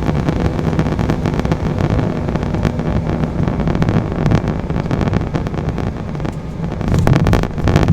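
Cabin noise of an Embraer E175 landing: a steady rumble and rush of the turbofan engines and airflow, with rattling jolts as the wheels touch the runway about four seconds in. The rumble grows louder near the end.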